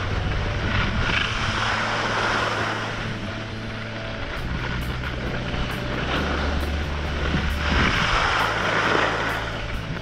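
Wind rushing over the microphone of a body-worn action camera while skiing downhill, with skis hissing and scraping over groomed snow. The rush swells twice, about two seconds in and again near the end.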